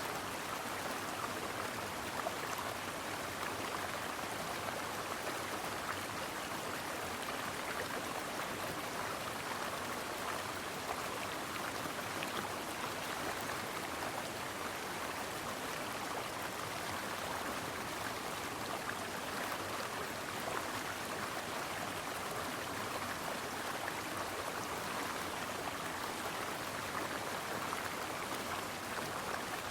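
A stream flowing over rocks, a steady rushing and babbling of water with no breaks.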